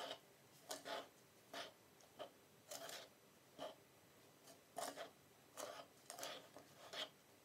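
A metal spoon scraping and stirring a dry, crumbly mixture with sugar in a wooden bowl. It makes about a dozen short, irregular scraping strokes, each under a second apart.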